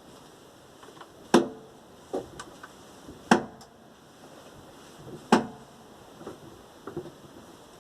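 Knocking under the hood of a 1997 VAZ 21099 as the steering is turned: three loud sharp knocks about two seconds apart, with two fainter ones between them. The knock is taken to come from a worn steering rack.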